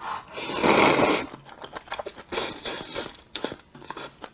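A person slurping a mouthful of noodles in one loud, wet slurp about half a second in, followed by a run of short wet chewing and mouth clicks.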